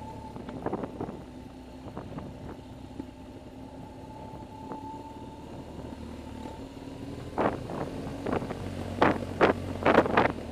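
BMW R1200GS boxer-twin engine running at a steady speed, a low hum with a faint steady whine, heard from a camera on the motorcycle. From about seven seconds in, bursts of wind buffet the microphone.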